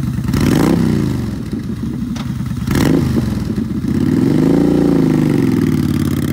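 2014 Yamaha V-Star 950 V-twin cruiser running through aftermarket Cobra exhaust pipes. It is blipped twice, then the engine note rises and falls as the bike pulls away.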